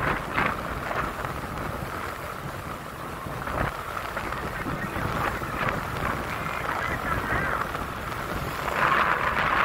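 Wind buffeting the microphone over the steady rumble of a moving vehicle, with a few louder gusts.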